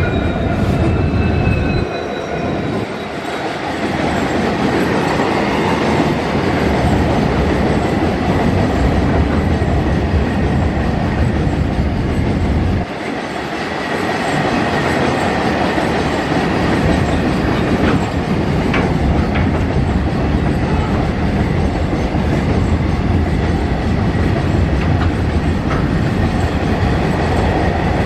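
A long rake of BOXN open steel freight wagons rolls past at speed: a steady rumble and rattle of wheels on rail, with brief dips and a few sharp clicks about two-thirds of the way through. In the first two seconds the whine of the passing EMD diesel locomotive fades out under the wagon noise.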